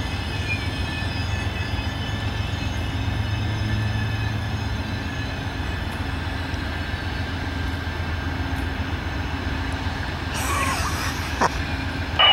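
Two GE Genesis diesel locomotives pulling a passenger train in slowly, their engines a steady low rumble with a steady high-pitched squeal from the train over it.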